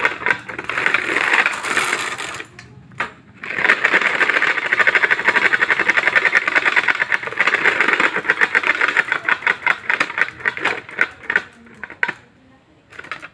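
Homemade add-on 'exhaust' noisemaker clattering in fast runs of clicks. There is a short burst first, then a brief pause, then a longer run that slows into separate clicks and stops near the end.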